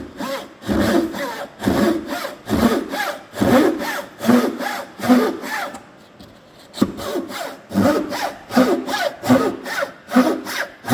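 Japanese dozuki pull saw cutting through wood by hand, in steady back-and-forth strokes of about one and a half a second. There is a short pause about halfway through before the strokes resume.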